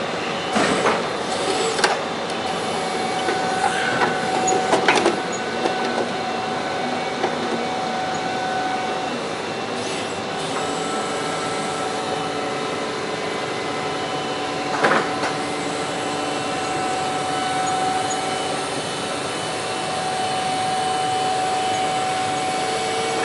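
Forklift raising its mast: a steady mechanical whine from the lift drive, with a few clunks and knocks near the start and one about fifteen seconds in.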